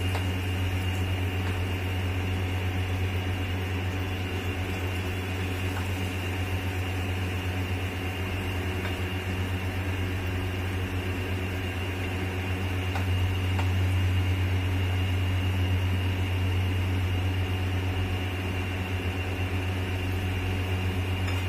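Steady low mechanical hum, like a small motor running, with batata vadas deep-frying in hot oil.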